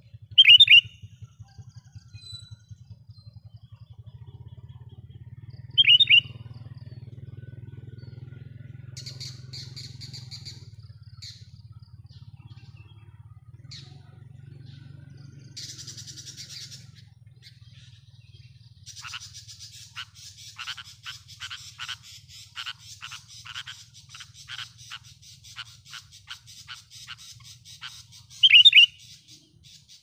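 Sooty-headed bulbul calling: three loud, short calls, one near the start, one about six seconds in and one near the end, with softer chirps between them and a run of quick repeated notes through the second half.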